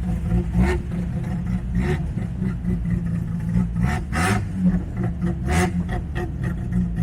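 Bridgeported 13B rotary engine of a Mazda REPU pickup idling with an uneven, choppy lope, with a few sharp clicks over it.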